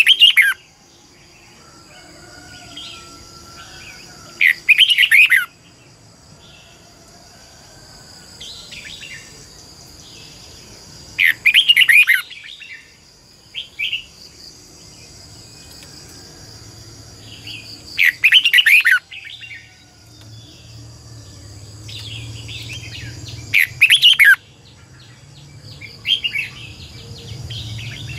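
Red-whiskered bulbul singing: four loud, warbling song phrases of about a second each, roughly every six or seven seconds, with softer chirps between them. A steady high-pitched drone runs underneath.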